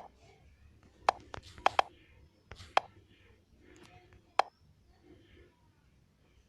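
About six short, sharp clicks, several in quick succession around a second or two in and one more near the middle, over faint room noise.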